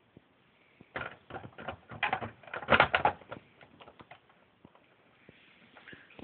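A quick flurry of small, sharp clicks and clatters about a second in, loudest around three seconds in, thinning to a few scattered single clicks.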